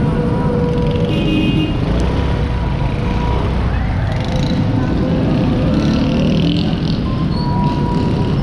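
Busy city road traffic: the engines of passing vehicles run steadily under a dense low rumble, with a few brief higher steady tones cutting through.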